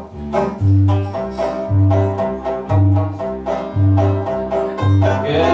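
Banjo picked in an instrumental passage of a live song, over a low bass note that pulses about once a second. A sustained chord swells in near the end.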